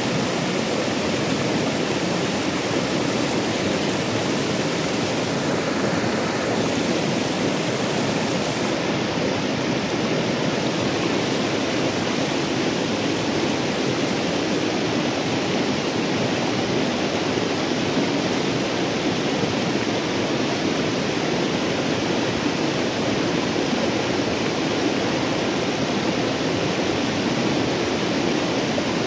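White-water rapids rushing steadily over a rocky ledge, an even, unbroken rush of water.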